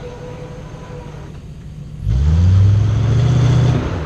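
Four-wheel-drive off-road vehicle's engine running low, then revved hard about two seconds in, held high for nearly two seconds and let off near the end.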